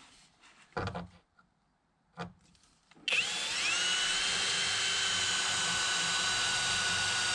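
Electric drill starting about three seconds in and running steadily with a high whine, a 3 mm bit boring a small pilot hole in the door to reach a hidden window-motor screw. A couple of brief knocks come before it.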